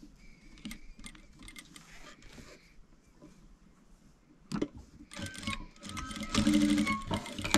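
Industrial single-needle sewing machine stitching a gathered ruffle onto fabric. A few quiet clicks come first, then from a little past halfway the machine runs in spurts with rapid ticking stitches.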